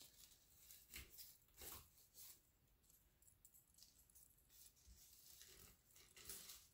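Faint rustling and light clicks of flower stems and leaves as they are pushed into a bouquet in a vase, in a few short, scattered strokes.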